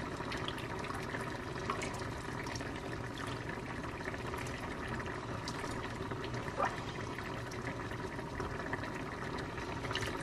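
Broth being ladled from a stainless-steel pot into a bowl, liquid pouring, with one short knock partway through, over a steady hiss.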